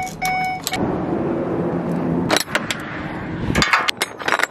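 A dashboard warning chime beeps in the box truck's cab, and the truck's engine runs steadily behind it. The engine sound stops abruptly about three and a half seconds in, and a few sharp metal clicks and knocks follow as the cargo door's latch rail is handled.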